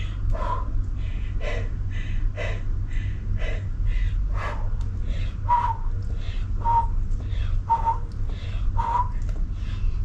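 Sharp, breathy exhalations through pursed lips, about one a second, paced with each repetition of a seated dumbbell arm exercise. In the second half each breath has a short whistling tone. A steady low hum runs underneath.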